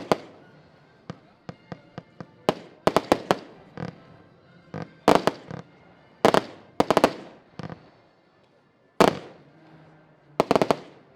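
Diamond Golden Bridge 75-shot fireworks battery firing: a run of sharp bangs at uneven spacing, some single and some in quick clusters of two to four. The last cluster comes about ten and a half seconds in.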